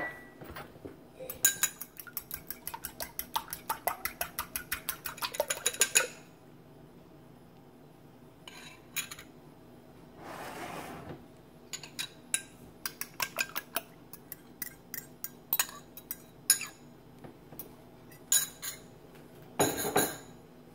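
A utensil beating a raw egg in a small ceramic bowl: a fast run of clinks for about four seconds, then scattered taps and a clatter near the end.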